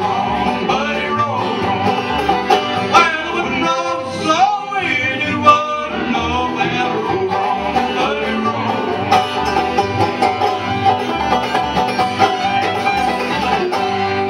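Live acoustic bluegrass band playing: fiddle, five-string banjo, acoustic guitar and upright bass, with a steady bass pulse under the melody.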